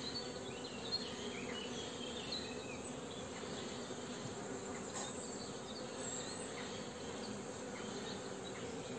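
Honeybees buzzing steadily on and around a frame lifted out of a small Mini Plus mating nuc.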